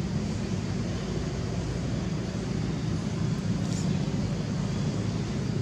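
Steady low outdoor rumble with no clear source, and one faint, brief high-pitched sound about three and a half seconds in.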